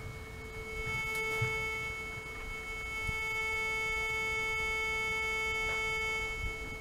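Viking VK40 metal detector in its non-motion (static) mode giving a continuous steady tone, its signal for a large metal object: a metal box held about a metre from the coil. The tone wavers slightly in character a couple of times as the box is moved.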